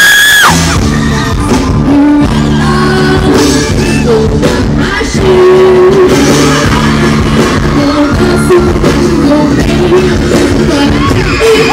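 Live rock-pop band playing loudly while a female singer sings into a microphone.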